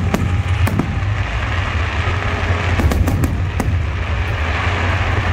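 Fireworks shells bursting in a string of sharp bangs, with a quick cluster about three seconds in, over a steady low rumble.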